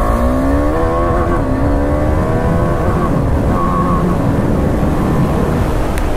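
KTM 390 single-cylinder motorcycle engine accelerating hard from a standstill at a traffic light, its revs climbing steeply in the first second or so and then rising more gradually as it pulls away, with heavy wind rumble.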